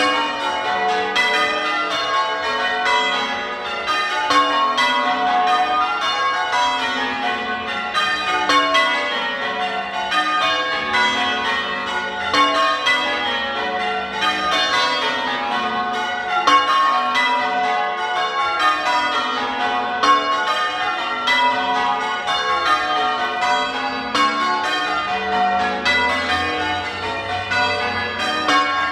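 Church tower bells being change-rung: a continuous, even stream of bell strokes, one bell after another, with runs of notes stepping down the scale row after row.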